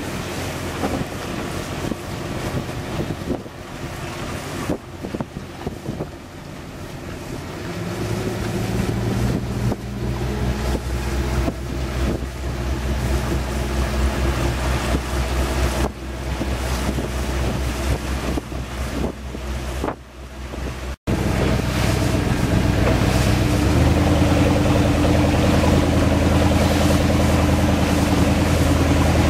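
MerCruiser 8.2-litre big-block V8 with Corsa exhaust pushing a Sea Ray 250 SLX runabout through a take-off; the engine grows steadily louder from about eight seconds in as the throttle comes up. After an abrupt cut about two-thirds through, it runs loud and steady at speed, stepping up once more shortly after, with wind on the microphone and rushing water from the wake.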